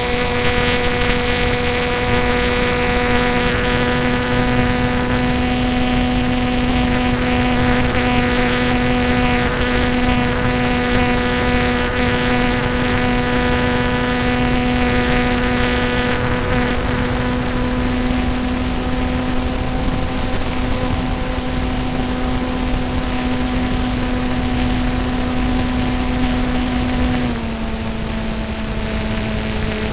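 Beaver airplane's propeller engine running steadily, heard from a camera on board: one loud, even drone with many overtones. About 27 seconds in the pitch drops a little and it gets slightly quieter as the engine slows.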